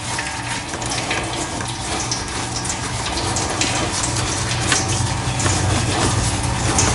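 Engine oil running out of a John Deere 5075E tractor in a steady pouring stream during an oil change, over a low steady hum, slowly growing a little louder.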